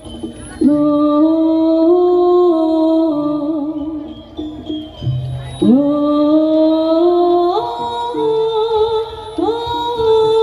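Javanese jaranan music: a melody of long held notes that slide upward in steps, over low percussion.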